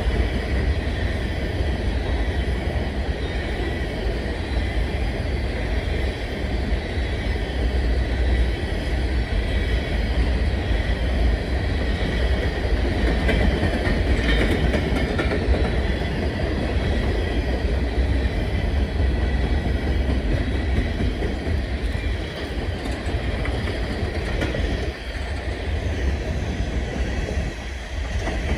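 Norfolk Southern freight train rolling past: a steady rumble of steel wheels on the rails.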